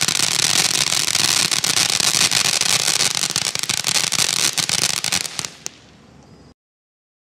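Black Cat Bug Zapper firework fountain burning, a loud, dense crackling hiss of sparks. It dies away a little after five seconds in, with one last pop as it burns out.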